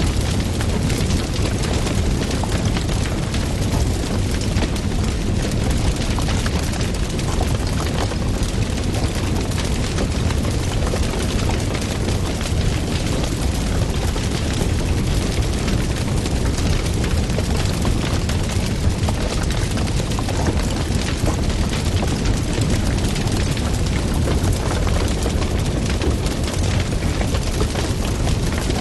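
Wood fire burning, a steady low roar of flames with dense crackling and popping throughout.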